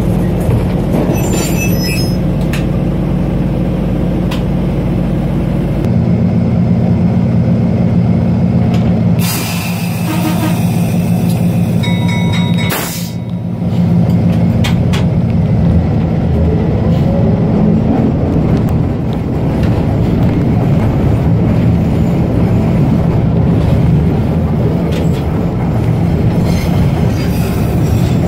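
GE 25-ton diesel locomotive's engine running steadily as the locomotive rolls along the track, heard from its platform. About six seconds in the drone changes note, and two short hissing sounds come around ten and thirteen seconds in.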